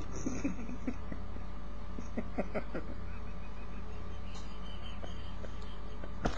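Stifled, breathless laughter: a few faint squeaks and wheezes about half a second in, again around two seconds in and once near the end, over a steady low hum.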